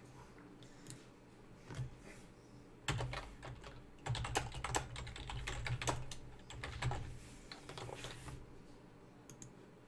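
Typing on a computer keyboard: a few scattered key clicks, then a steady run of keystrokes from about three seconds in until near the end.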